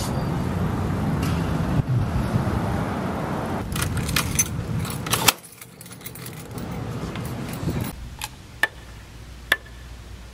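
Keys jangling and a key clicking in a glass door's lock as it is unlocked. For the first half there is steady outdoor road noise, which drops away suddenly about five seconds in. After that a few single sharp clicks sound from the key and lock.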